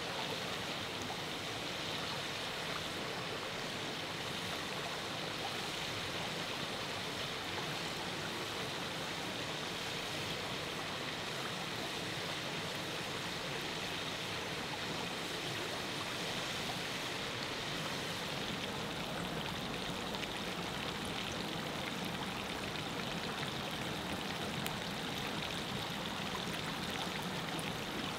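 River water flowing steadily in a continuous rushing babble.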